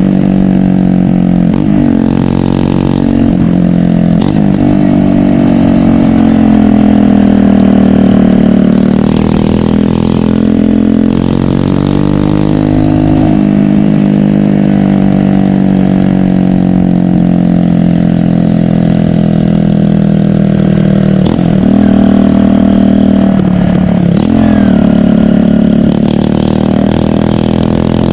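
150 cc single-cylinder motorcycle engine running loud, its pitch rising and falling over and over with a few sharp dips, as when the throttle is opened and closed or gears are changed.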